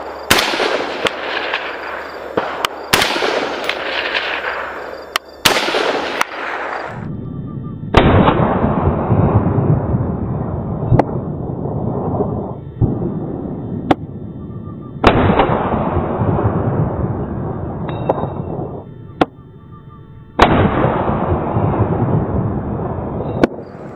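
AR-15-style semi-automatic rifle fired shot by shot, about half a dozen loud cracks spaced a few seconds apart, each followed by a long echoing tail. A few fainter sharp cracks fall between them.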